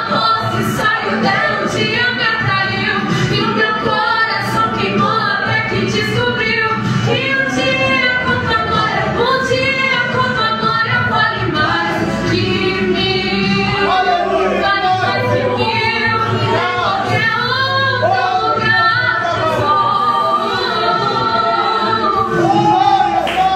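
A woman singing a Portuguese-language gospel worship song into a microphone, amplified through a PA, with her voice holding and bending long sung notes throughout.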